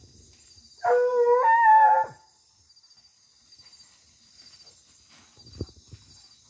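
Hunting dog giving one drawn-out bay about a second in, lasting just over a second, with a break and a slight step up in pitch midway.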